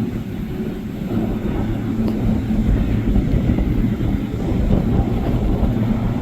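A Cutwater boat's engines running steadily, a low rumble with a steady hum.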